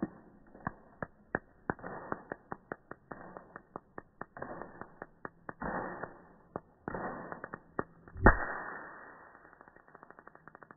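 Electric fly-swatter racket zapping a fly caught in its mesh: a string of sharp snaps with several crackling bursts, the loudest snap about eight seconds in, then quick faint ticks near the end.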